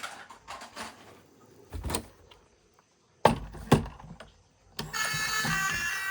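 Hard objects being handled: brief rustling, a thump, then two sharp knocks about three seconds in, followed near the end by a bright electronic tune that starts suddenly.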